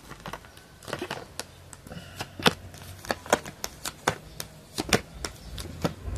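Tarot cards being handled and dealt onto a cloth-covered surface: an irregular run of sharp card taps and flicks.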